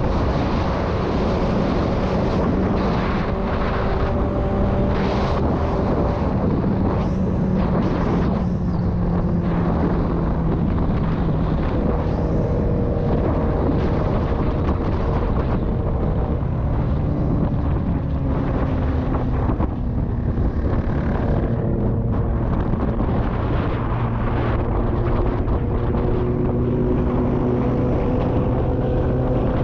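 A motorcycle engine running at cruising speed. Its note drifts up and down as the speed changes, under steady wind rush on the camera microphone.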